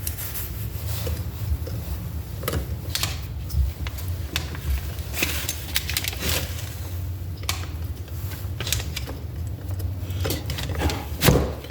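Small metal clicks and taps of bolts and hand tools while the igniter is bolted onto a Toyota 4A-FE distributor, irregular throughout and with a louder cluster of knocks near the end, over a steady low hum.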